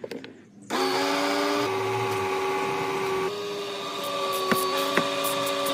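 A power tool's motor starting abruptly and running with a steady whine that steps slightly in pitch a few times, with a couple of sharp clicks.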